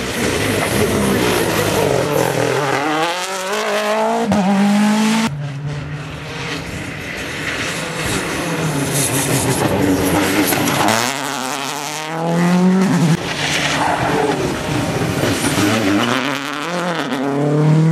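Turbocharged four-cylinder World Rally Car engines at full throttle, their pitch climbing and dropping again and again through gear changes as the cars pass. The sound breaks off abruptly about five seconds in and again about thirteen seconds in, as one car gives way to the next.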